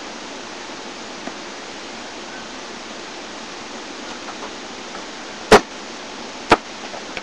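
Two loud thuds of a basketball, about a second apart, over a steady hiss.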